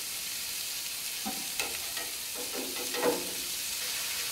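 Pork sausage patties sizzling steadily on a hot steel flat-top griddle, with a few light knocks, the loudest about three seconds in.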